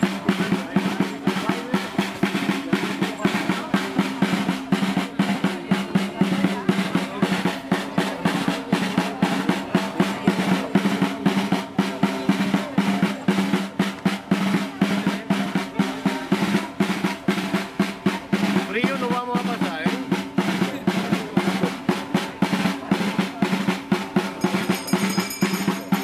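Drum beaten in a steady, quick rhythm of about three strokes a second, over a steady held tone, playing music for a circle dance.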